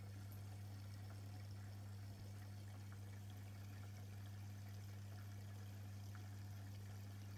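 Aquarium pump running: a faint, steady low hum with water trickling softly.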